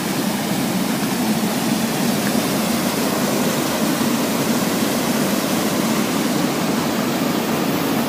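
Small waterfall and the rocky stream below it, water rushing steadily with an even, unbroken hiss.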